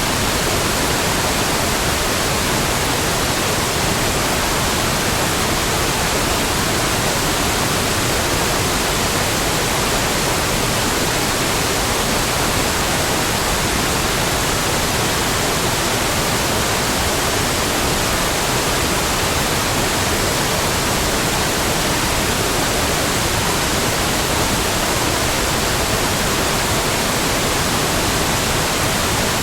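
Heavy waterfall: a steady, even rush of falling water with no breaks or changes.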